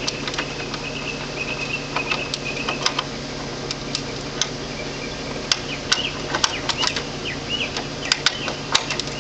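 Irregular sharp clicks and ticks of a screwdriver working a terminal lug screw in a metal breaker panel, over a steady low hum.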